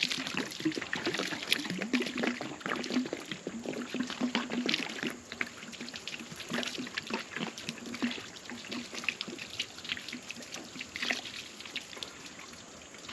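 Water poured from a jug splashing across the flat face of a freshly sawn oak slab, heavier for the first five seconds or so, then lighter splashing and trickling as the jug empties.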